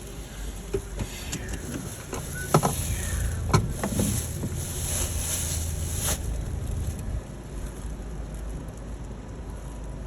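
Toyota car driving, heard from inside the cabin: a steady low engine and road rumble with tyre hiss that drops away about six seconds in as the car slows. Two sharp clicks about two and a half and three and a half seconds in.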